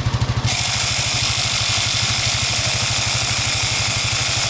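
Compressed air hissing steadily from a compact tyre inflator into an ATV's deflated tyre, starting about half a second in and cutting off sharply at the end. An ATV engine idles underneath with an even pulse.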